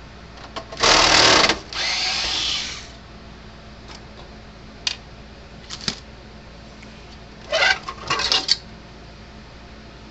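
Cordless drill-driver backing out screws: a loud run of about a second, then a softer run for another second, a few light clicks, and a cluster of short trigger bursts near the end.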